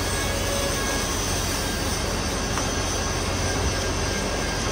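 Steady, loud rushing noise from heavy metal-fabrication work, with a low hum underneath.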